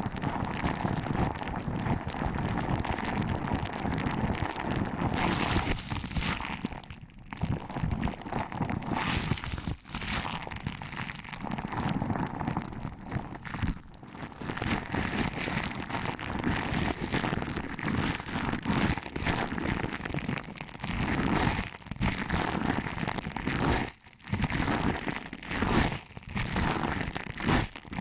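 Hands pinching and rubbing the ears of an ASMR binaural microphone: a dense, continuous crinkling rustle close to the ear, broken by a few brief pauses.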